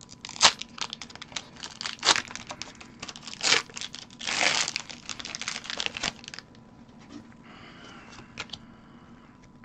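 Foil Pokémon booster pack wrapper crinkling and crackling as it is torn open by hand, with one longer tearing rip about four and a half seconds in.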